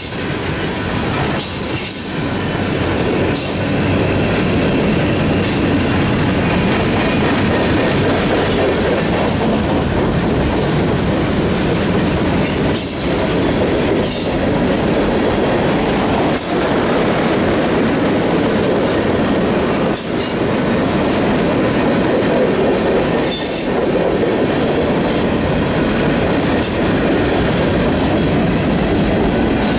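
Freight cars (tank cars and covered hoppers) rolling past close by: a steady loud rumble of steel wheels on rail, with intermittent high-pitched wheel squeal and clacks as the wheels cross rail joints.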